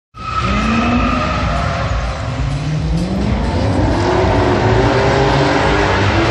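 A car engine revving hard on a show course, its pitch climbing from about two and a half seconds in and holding high. A high whine is heard over it in the first second and a half.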